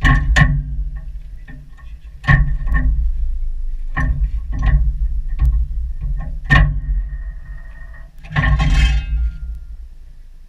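Sharp metallic clicks and knocks, each with a brief ring, at uneven intervals from the field gun's mechanisms as the gunner works them at the sight. A rougher scraping clatter comes near the end, with a low rumble underneath throughout.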